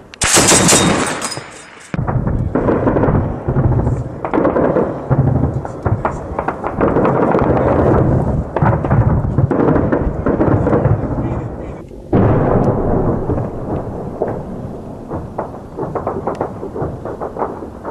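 A tripod-mounted heavy machine gun fires a loud burst that stops about a second and a half in. A long stretch of low rumbling follows, with many sharp cracks of distant gunfire and explosions.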